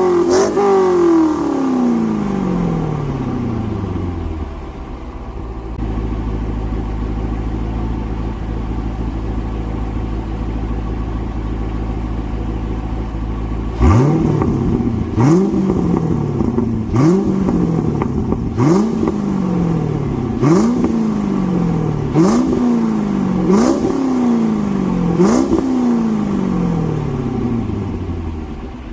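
C5 Corvette Z06's LS6 V8 exhaust: a rev falls back to idle in the first few seconds, and the engine idles steadily for about ten seconds. It then gives about eight quick throttle blips, roughly one every second and a half, each climbing sharply and falling away.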